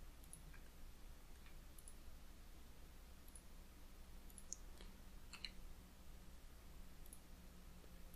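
Faint, scattered computer mouse clicks, about eight of them, a few in quick succession about halfway through, over low room hiss.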